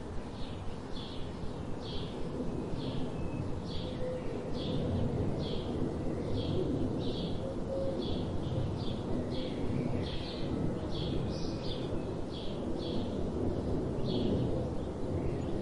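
A sparrow chirping over and over, roughly one short chirp a second, over a steady low background rumble.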